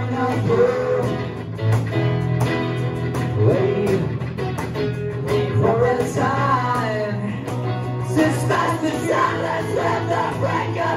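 Live band playing a rock song: electric guitar and a second guitar, with a singer's voice over them at the microphone.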